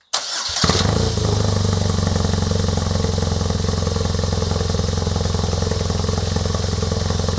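BMW R nineT 1170 cc boxer twin starting up, catching within about half a second and settling into a steady idle. The exhaust flap valve is in its factory setting.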